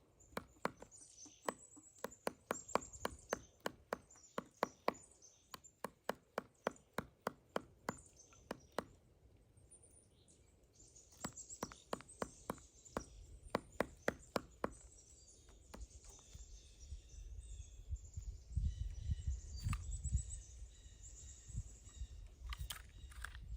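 Pileated woodpecker chiselling into a pine tree: sharp, irregular wooden pecks, about three a second, with a short pause about nine seconds in. The pecking stops about fifteen seconds in, leaving a low rumbling noise.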